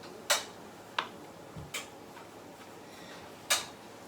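Kitchen knife cutting mushrooms against a cutting board: four sharp, irregularly spaced knocks, the loudest near the start and about three and a half seconds in, with a dull low thump in between.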